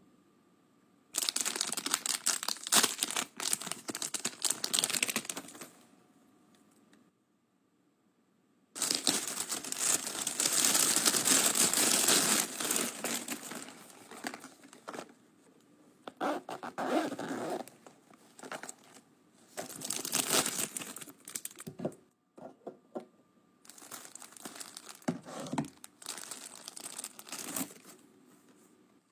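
Packaging crinkling and being torn open by hand, in several bursts of a few seconds each with short quiet gaps between.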